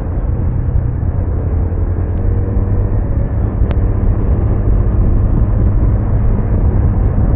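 Riding noise on a moving Honda Super Cub 110: wind rushing over the bike-mounted microphone, with the engine and passing traffic underneath, getting slowly louder.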